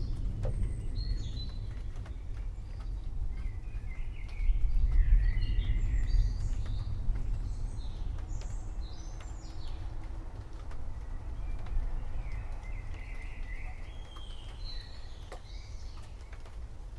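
Low rumble of distant thunder that swells about four seconds in and slowly fades, with birds chirping throughout.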